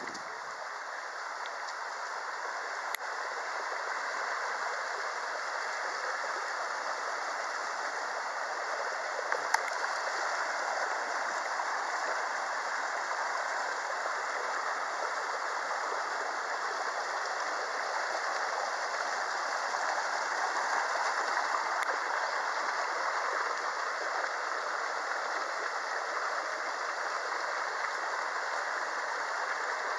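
Mountain stream rushing over rocks in a steady flow, growing a little louder over the first few seconds. A few faint sharp clicks stand out, the sharpest about ten seconds in.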